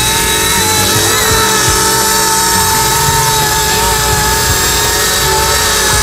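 Electric motor and rotor whine of a small C187 RC helicopter in flight, a steady high whine that wavers slightly in pitch as the throttle changes.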